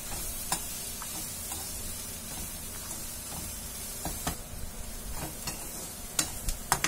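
Onion and spice masala sizzling in a metal kadai while a perforated metal spatula stirs it. The spatula scrapes and taps against the pan now and then, with a few sharper clicks near the end.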